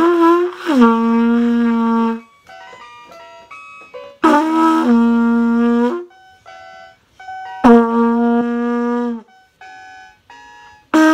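Trumpet blown in three held phrases, each starting on a higher note and then dropping to a lower one that is held for about a second.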